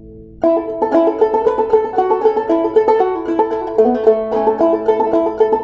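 Banjo being played: after a brief lull, a quick, steady run of plucked notes starts about half a second in and carries on.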